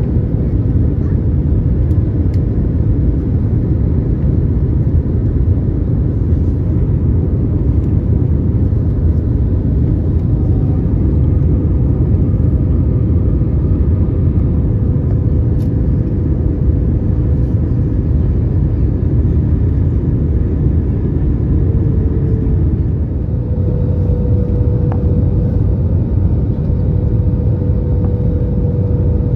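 Cabin noise inside an Airbus A321neo around final approach and touchdown: a steady, loud rumble of airflow and engines with a constant hum over it.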